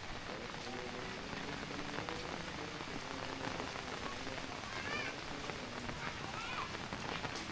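Heavy rain falling steadily, a dense patter of drops on surfaces, with a few brief high chirps about five to six seconds in.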